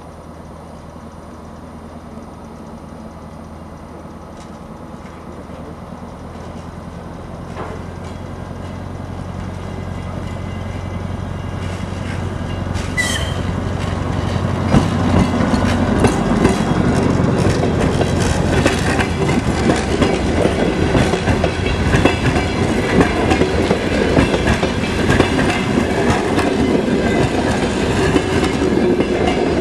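DR1A diesel multiple unit approaching and passing: a low diesel drone grows steadily louder over the first half. Then the wheels clatter rhythmically over the rail joints as the cars go by close. A brief high tone sounds once about halfway through.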